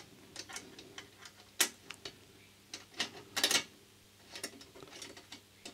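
Light metallic clicks and taps as the steel brake and switch linkage levers of a Garrard 202A turntable are fitted and moved on the steel deck plate. The clicks come irregularly, with a louder cluster around the middle.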